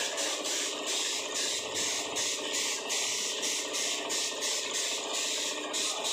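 Steady hiss of a compressed-air paint spray gun, with a fast, regular flutter.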